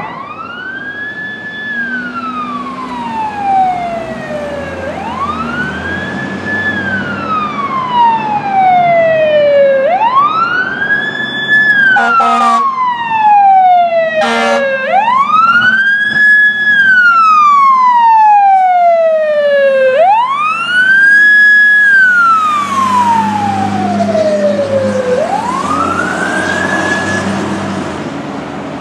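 Fire apparatus siren wailing, about six cycles that each rise quickly, hold briefly and fall slowly, under a low diesel engine rumble. Two short air-horn blasts come in the middle, where it is loudest, and it fades as the rigs pull away.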